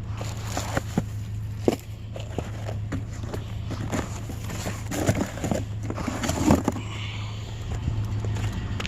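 A vehicle engine running steadily, with scattered knocks and clatters, heavier about five to six seconds in.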